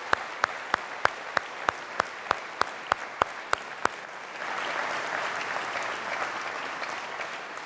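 Audience applauding in a hall, with one person's sharp, evenly spaced claps close to the microphone, about three a second, which stop about four seconds in. The applause then swells and tapers off near the end.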